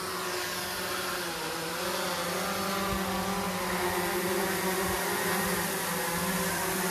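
Quadcopter drone hovering, its propellers giving a steady multi-tone hum that wavers slightly in pitch.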